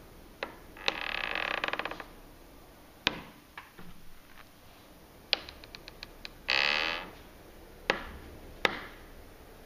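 Patio door hinge squealing as the door is moved: a pulsing squeak of about a second about a second in, and a shorter, louder one past the middle, among sharp clicks and a quick run of ticks. The hinge squeaks and creaks although it has already been oiled as the care instructions say.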